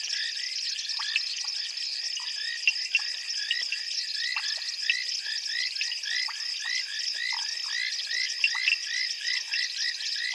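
Dense chorus of many frogs calling together: short, quickly repeated calls overlapping without a break, several a second, over a steady high trill, with an occasional louder single call standing out.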